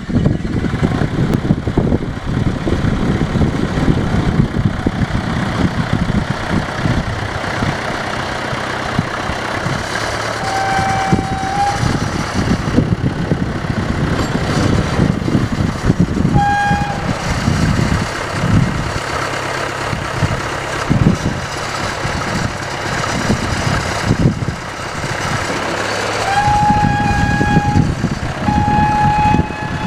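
A John Deere 310A backhoe loader's diesel engine runs with an uneven, churning beat. A steady high beep sounds over it four times: once about a third of the way in, briefly about halfway, and twice near the end.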